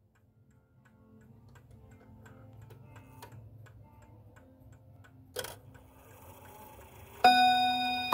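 Gustav Becker clock's chime movement running: faint clicking over a low steady running noise, a sharp click about five seconds in, then near the end a hammer strikes the first chime rod and it rings out loudly.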